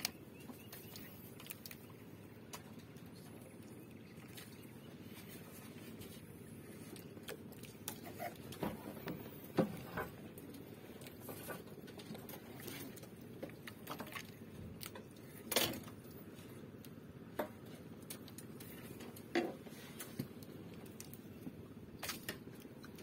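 Faint steady background hiss with irregular light clicks and knocks from a spinning rod and reel being handled while jigging from a small boat.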